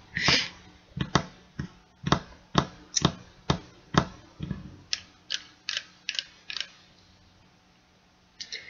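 A lighter clicked over and over, about two sharp clicks a second, stopping about two-thirds of the way through.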